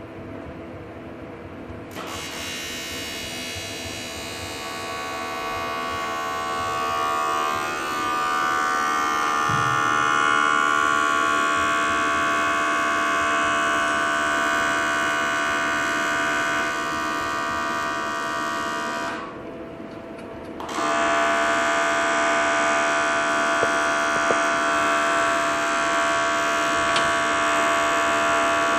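Electric power tool running with a steady high whine. It stops briefly about two-thirds of the way through, then starts again.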